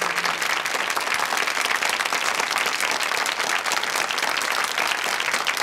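Studio audience applauding: many people clapping together in a steady, dense patter.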